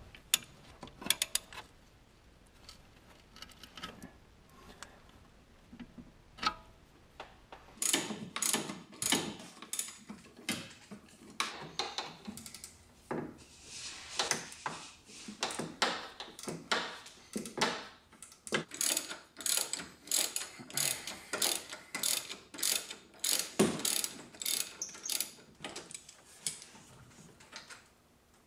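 Hand ratchet wrench clicking in quick repeated bursts as bolts are turned, with only scattered clicks at first and steady runs of ratcheting from about eight seconds in.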